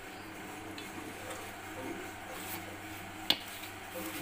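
Metal spoon in a ceramic bowl of yogurt-and-spice marinade: faint stirring and scraping, with one sharp clink a little after three seconds in.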